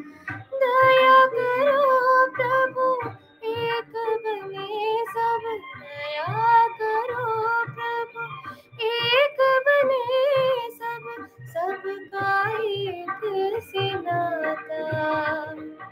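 A young woman singing a Hindi film song solo, her voice gliding up and down with ornaments in phrases a second or two long, broken by short breaths.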